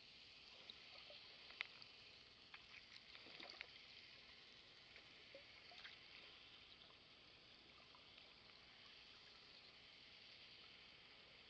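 Faint underwater ambience picked up by a camera below the surface: a steady soft hiss with scattered small clicks and pops, the sharpest about a second and a half in and a cluster of them around three to four seconds.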